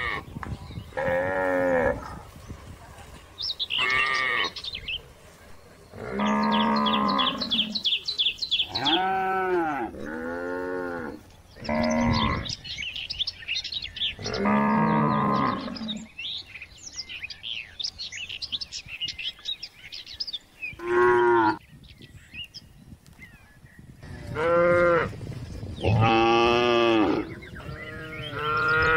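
Cattle mooing again and again, a dozen or so separate calls of half a second to two seconds each at different pitches, from several animals. Birds chirp faintly in the pauses between the moos.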